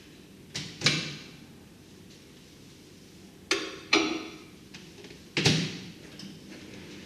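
Three pairs of sharp knocks or pops, each pair a fraction of a second apart, with short ringing tails.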